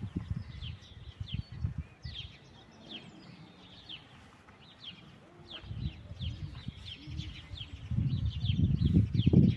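Small birds chirping over and over, short high notes that slide downward. Under them runs an irregular low rumbling noise that grows loud from about eight seconds in.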